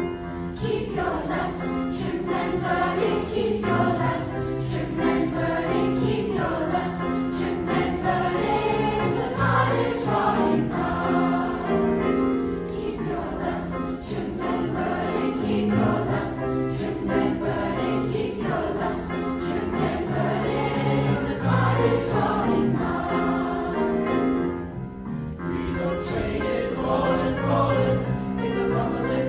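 A mixed youth choir of boys and girls singing with grand piano accompaniment. The sound eases briefly a few seconds before the end, then goes on.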